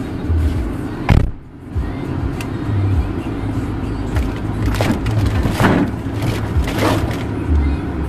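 A refrigerator being shoved into a car's cargo area: a knock about a second in, then several scraping slides as it is scooted along.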